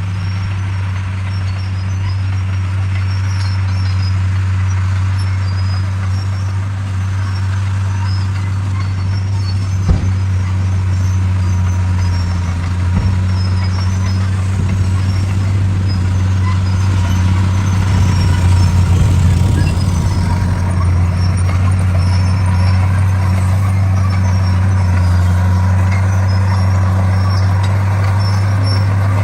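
D41 bulldozer's diesel engine running steadily under load with a deep drone, swelling a little past the middle, with a single sharp knock about a third of the way in.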